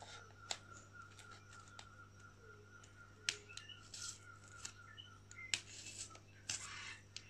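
Faint handling sounds of an insect spreading board: scattered clicks and short scratchy rustles as fingers and pins work paper strips and polystyrene while setting a cicada's wings.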